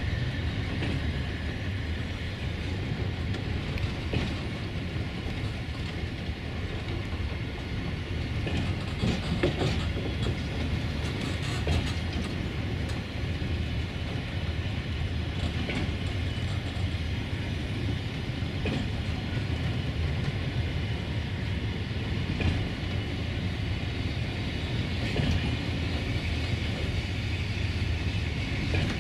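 Freight train wagons rolling steadily past: a continuous low rumble of steel wheels on rail, with irregular clacks and clicks as wheels cross the track joints.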